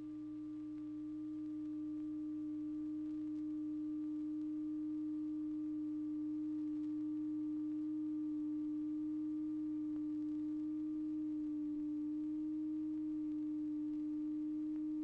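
Electrically driven tuning fork sounding one steady, unbroken tone, with faint higher overtones, growing a little louder over the first few seconds.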